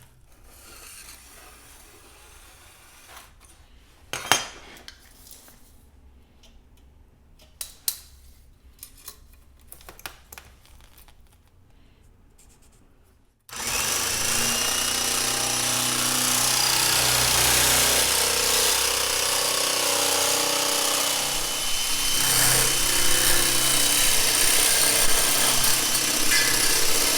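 A few light knocks from handling, then about halfway through a power tool starts suddenly and runs loud and steady through the rest.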